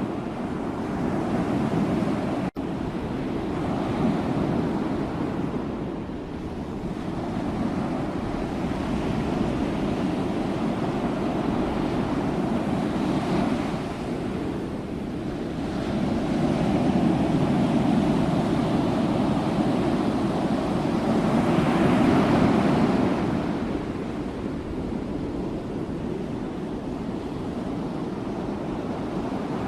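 Sea waves breaking and washing on the shore, the surf swelling and ebbing every few seconds, with a brief dropout in the audio about two and a half seconds in.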